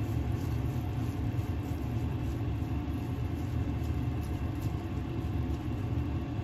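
A steady low rumble of machine-like noise, with a wooden spoon stirring cooked bulgur and lentils in a pot on top of it.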